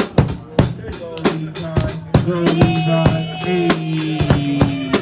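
Live music with a drum kit playing a steady, fast beat of kick and snare hits, with held pitched notes sounding over it.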